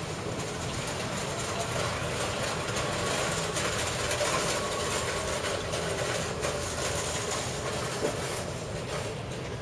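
Steady mechanical rumbling and rattling, a little louder around the middle.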